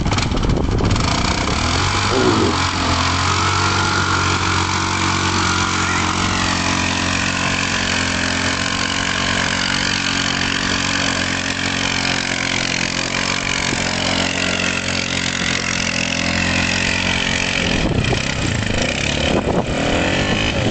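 Off-road vehicle's engine idling with a steady note that breaks up near the end.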